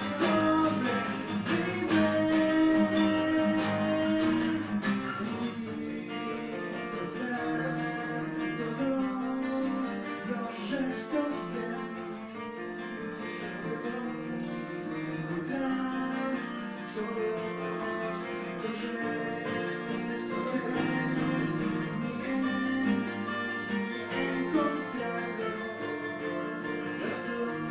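Two acoustic guitars playing together, one a black cutaway electro-acoustic and one a natural-finish acoustic, picked and strummed.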